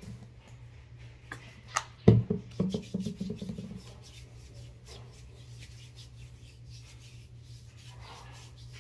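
Hands rubbing lotion into skin, with the plastic lotion bottle handled: a couple of sharp clicks, then a thump and short clatter about two seconds in, over a steady low hum.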